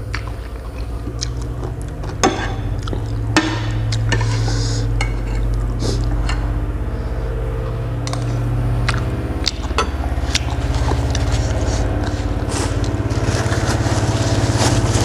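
Eating sounds: utensils clinking and scraping against a dish, with scattered sharp clicks, over a steady low hum.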